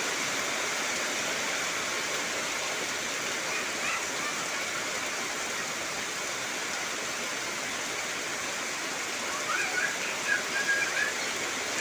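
Heavy rain falling steadily as an even hiss, with a few short chirping calls near the end.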